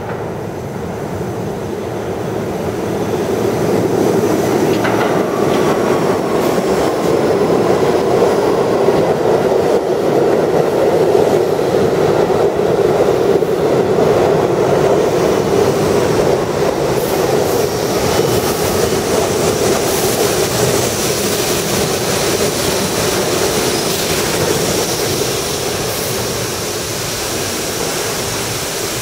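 R62A subway train pulling into a station: steady wheel-on-rail rumble and clatter that builds over the first few seconds as the cars come alongside, with sharp clicks over rail joints. High-pitched squealing joins in the second half as the train slows toward a stop.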